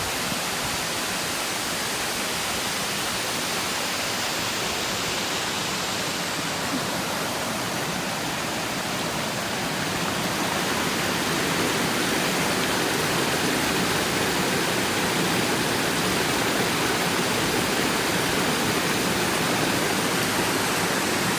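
Waterfall: a steady rush of falling water, growing a little louder about halfway through.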